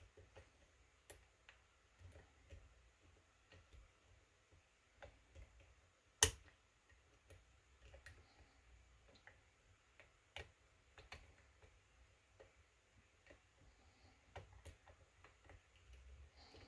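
Lock pick and tension wrench working the pins of a kick cylinder lock, making faint, irregular clicks and ticks, with one sharp, much louder click about six seconds in.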